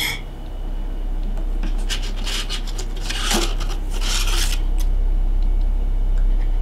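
Rustling and scraping of cardboard and paper as hands rummage through an opened cardboard shipping box, in two bouts about two and three seconds in, over a steady low hum.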